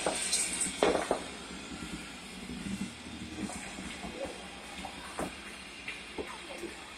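Bonfire burning with a steady hiss and a few faint scattered pops.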